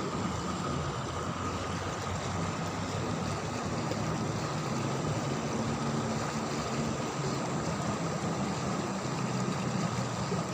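Steady rush of flowing river water, with a low steady hum underneath.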